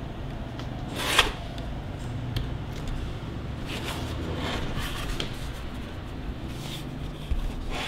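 Stiff plastic panels of a folding mini photo studio box being handled and unfolded by hand: a series of short rustling, scraping flexes, the loudest about a second in.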